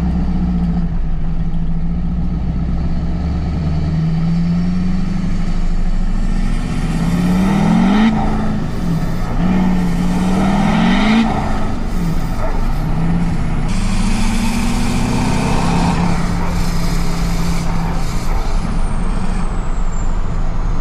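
Duramax V8 turbodiesel of a truck, heard from inside the cab while driving: a steady engine note with road noise that climbs in pitch and drops back a few times as the truck pulls and is shifted through the gears.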